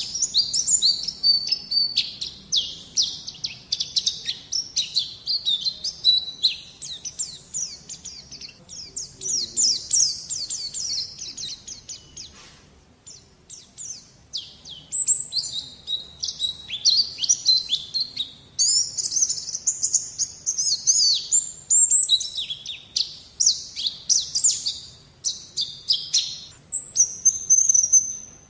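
White-eyes (pleci) singing a fast, continuous twittering song of high chirps and warbles, with a short pause about halfway through. It is a masteran recording, birdsong used to teach young white-eyes to sing.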